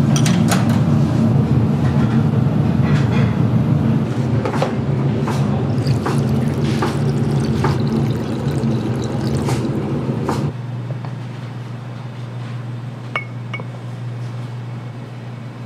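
Ceramic bowls and utensils clinking, with hot broth poured over udon noodles in a bowl. Under it runs a steady low hum that drops away suddenly about ten seconds in.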